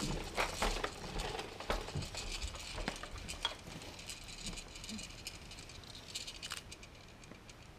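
Plastic toys and frame of a Fisher-Price Rainforest Jumperoo baby jumper rattling and clicking as the baby bounces and bats at them. A quick run of clicks and knocks thins out after about three seconds.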